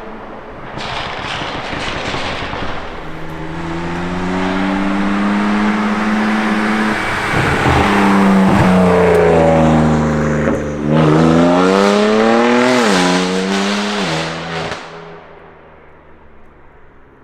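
BMW M4 with a Frequency Intelligence aftermarket exhaust accelerating hard. The engine note climbs, drops sharply twice at gear changes, rises to a peak about 13 seconds in, then fades away.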